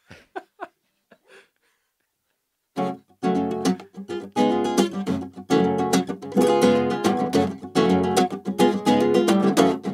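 Acoustic guitar being strummed, starting about three seconds in after a few faint taps and a short hush, then running on as a steady rhythm of chords.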